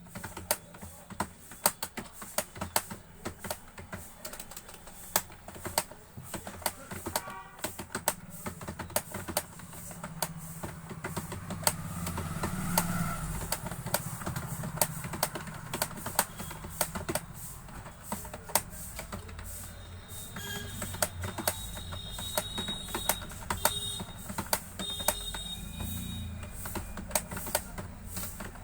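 Computer keyboard keys clicking in a fast, uneven run of keystrokes during typing. A low rumble swells in the background about halfway through, and a few short high tones sound in the last third.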